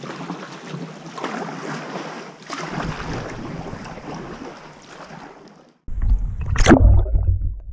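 Kayak paddle strokes splashing and water washing around the hull, in swells every second or so. About six seconds in this gives way abruptly to music with a deep droning bass and a sharp rising sweep.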